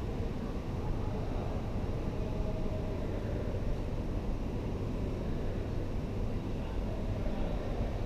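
Steady low rumble of the ambient noise in a large indoor ice rink, with no distinct events.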